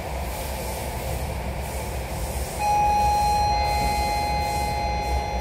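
Belgian classic electric multiple unit (AM Classique) train running, with a steady rumble throughout. About halfway through, a steady, high-pitched tone comes in and the sound gets louder, and a second, slightly lower tone joins it about a second later.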